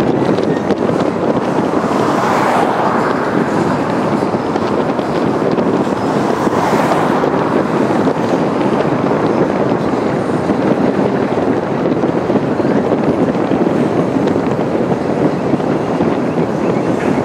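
Florida East Coast Railway freight train's cars rolling across a railroad trestle bridge, a steady rumble of wheels on rail mixed with wind on the microphone. Two brief swells of hiss come about two and six seconds in.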